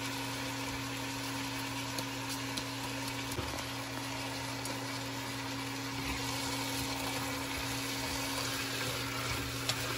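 Potato and carrot strips sizzling in a frying pan over a steady fan hum from the cooktop or range hood, with a few light clicks of utensils.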